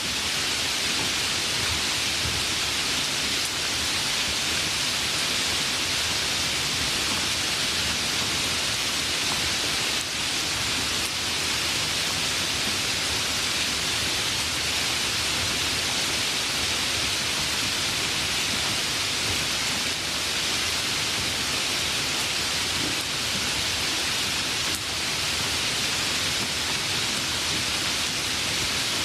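Heavy rain falling steadily: a dense, even hiss without letup.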